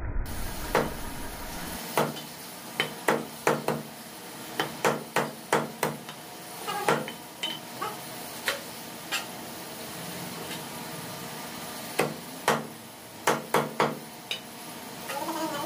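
Steel meat cleaver chopping chicken on a wooden butcher's block: runs of sharp, quick chops with short pauses between them.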